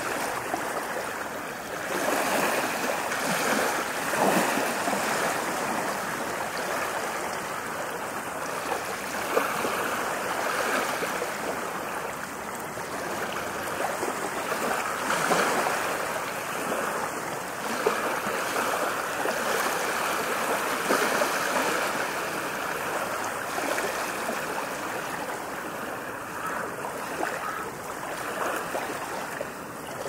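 Ocean waves: a continuous wash of surf that swells louder every several seconds and eases back between swells.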